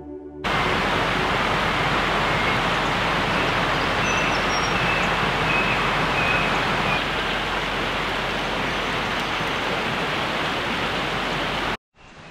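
Creek water rushing over rocks, a loud, steady, even rush. It starts abruptly just after the start and cuts off suddenly near the end.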